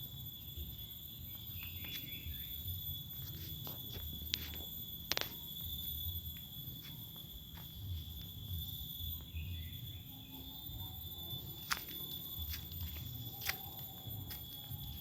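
Insects trilling in a steady, high-pitched drone, with a few faint chirps and scattered sharp clicks.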